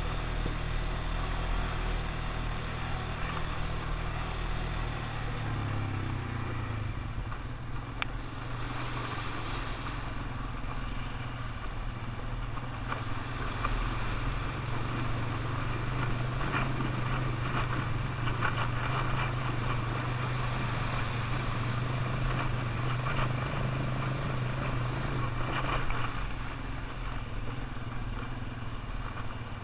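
ATV engine running as it is ridden. Its engine note rises about six seconds in and then holds steady.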